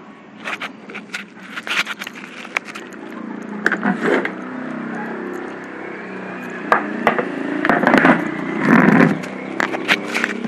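Yamaha RX King's single-cylinder two-stroke engine running at idle during carburettor adjustment, with sharp clicks and knocks of handling over it. The engine note grows steadier and louder from about four seconds in.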